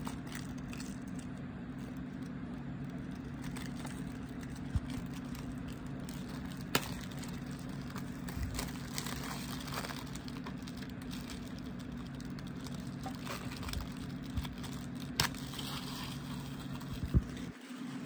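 Plastic shrink-wrap being peeled off a DVD case and handled, with light crinkling and a few sharp plastic clicks, over a steady low hum.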